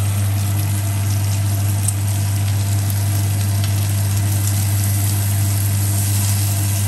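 Lamb chops sizzling steadily in a cast-iron skillet as they are turned with metal tongs, with a few faint ticks. A strong steady low hum runs underneath.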